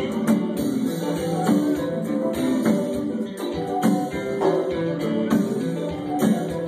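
Live music with strummed guitar over regular percussion strikes.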